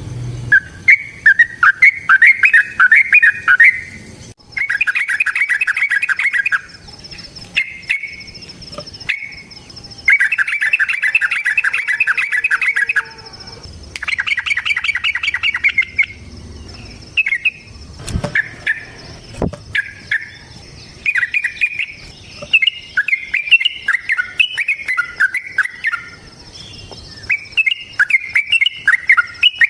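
Yellow-vented bulbul (trucukan) singing in bubbling phrases of quick warbled notes, several drawn out into long rapid runs of two to three seconds each. A thin, steady, high tone runs underneath.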